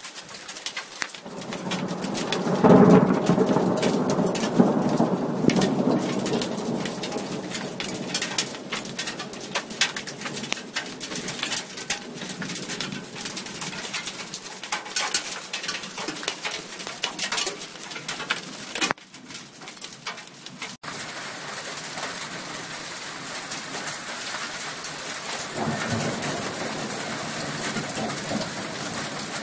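Graupel and small hail pelting down in a dense patter of sharp clicks. Thunder rumbles low and loud a couple of seconds in.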